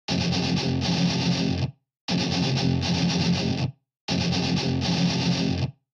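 Intro music on a distorted electric guitar: the same short phrase played three times, each about a second and a half long, with brief breaks of silence between.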